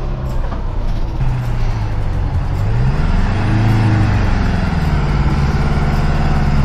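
A 1956 Greyhound Scenicruiser's diesel engine running as the bus drives off across rough ground. The engine note rises about two and a half seconds in, then settles back to a steady pace.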